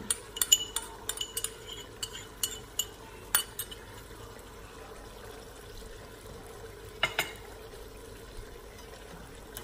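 A metal spoon clinks against a small bowl and a stainless-steel pressure-cooker pot as yogurt is scraped into the curry, a run of sharp clicks over the first few seconds and one more about seven seconds in. Under it, the masala and meat fry with a faint steady sizzle.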